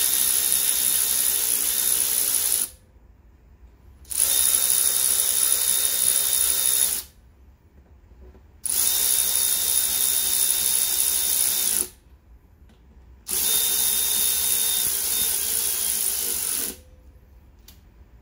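Cordless power ratchet running four times, each run a steady motor whine of about three to four seconds with short pauses between, as it drives the air compressor's cylinder head bolts back in.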